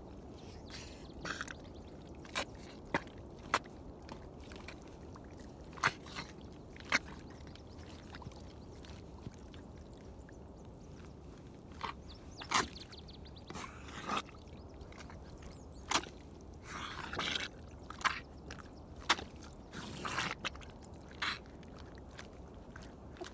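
Baffin rubber boots stepping slowly in wet, sticky mud: irregular short wet pops and squelches as each boot sinks and pulls free, with a few longer squelches in the second half.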